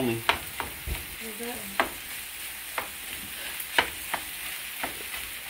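Fried rice sizzling steadily in a large pan while a wooden spatula stirs it, with about ten sharp, irregular clacks of the spatula against the pan.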